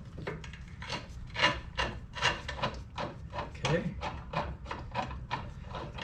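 Short, irregular metal scraping and rubbing, about two or three strokes a second: suspension bolts, nuts and washers being worked loose and handled.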